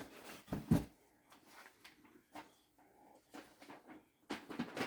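Soft handling noises as a dress is unfolded and held up: brief rustles and light knocks, the loudest just under a second in and a few more near the end.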